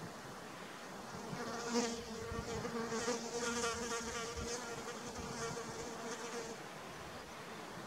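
A flying insect buzzing close by, a steady wavering hum that starts about a second and a half in and fades out about a second before the end.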